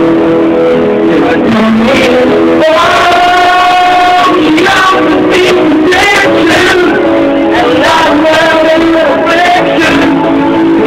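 A man singing into a microphone over loud amplified backing music, holding long notes.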